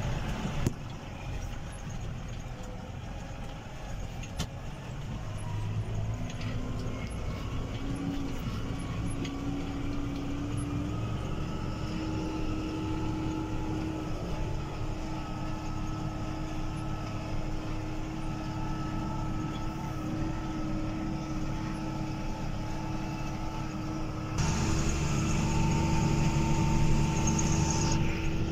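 Tractor engine running steadily, heard from inside the cab while pulling a fertiliser spreader across a field. The engine note rises over the first dozen seconds, and the sound steps up louder about 24 seconds in.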